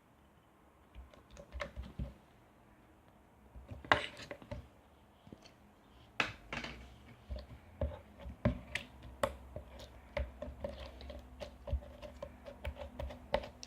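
Homemade clear galaxy slime being squeezed and stretched in the hands, giving irregular soft clicks and small sticky pops, more frequent in the second half.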